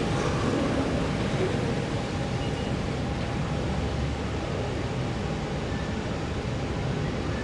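Steady room noise of a large, crowded prayer hall with no voices: an even low hiss with a faint steady tone underneath.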